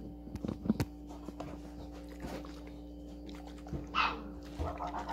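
A dog barks about four seconds in, with a fainter bark just after, over a steady electrical hum. A few light handling knocks sound in the first second.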